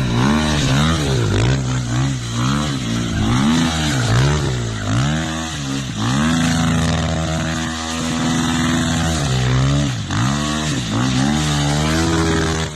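Dirt bike engine revving, its pitch climbing and dropping again and again as the throttle is opened and shut. Near the middle it holds one steady pitch for about two seconds.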